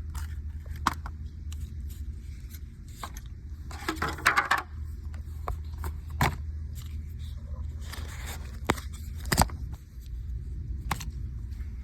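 Small hard parts of a motorcycle phone mount being handled: scattered clicks, taps and scrapes, with two short rustles, over a steady low rumble.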